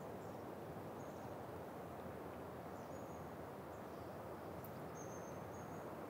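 Wind blowing steadily through Mediterranean pine trees, a soft even rush with no gusts, with a few faint high chirps about one, three and five seconds in.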